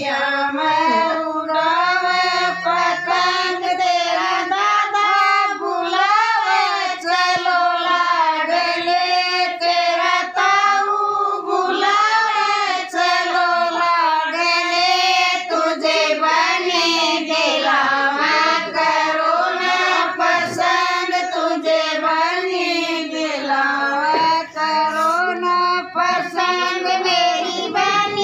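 Women singing a Haryanvi folk wedding song (sangeet geet), a continuous high-pitched melody that runs on without a break.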